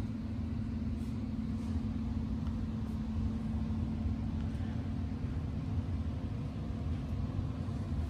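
Steady low machine hum and rumble, one unchanging droning tone over a deeper rumble, with no speech.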